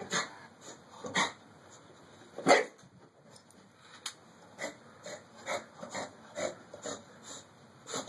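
A dog breathing and sniffing in short, quick puffs, about two a second, with a few louder huffs in the first few seconds.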